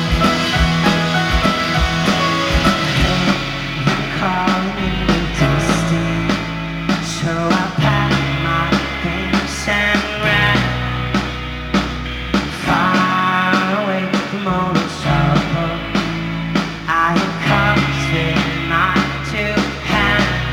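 Indie folk-rock band playing live: drums, guitars and long held bass notes that change every few seconds, with voices singing over them.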